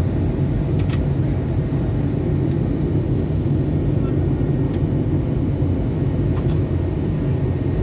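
Steady low drone of an airliner's engines and airflow heard from inside the passenger cabin during the descent to land.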